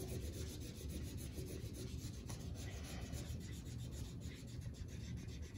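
Felt-tip marker scribbling rapidly back and forth on paper as a large area is coloured in: a continuous rubbing scratch made of many quick short strokes.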